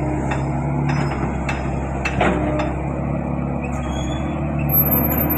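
Hitachi ZX110 excavator's diesel engine running steadily, with sharp metallic clicks about every half second and one louder clank a little past two seconds in. A thin high whine comes in near the end.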